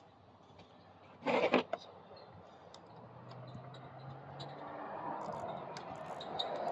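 Hands working with wires and small engine parts on a workbench: a brief loud scrape or rustle about a second in, then quieter handling noise with a few light clicks near the end.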